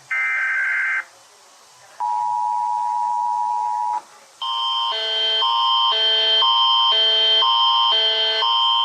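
Emergency Alert System alarm sequence: a burst of data tones about a second long, then a steady two-tone attention signal for about two seconds, then a loud alarm chime that switches back and forth between two chords about twice a second.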